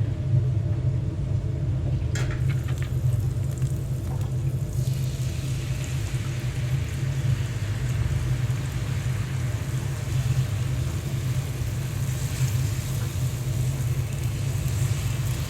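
Food sizzling on a hot griddle, coming in about four or five seconds in after a few light utensil clicks, over a steady low hum.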